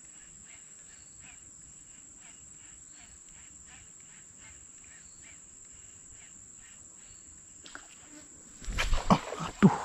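Insects in vegetation keep up a steady high drone, with a faint chirp repeating about twice a second. About nine seconds in, loud irregular knocks and rustles cut in, as from footsteps and handling close to the microphone.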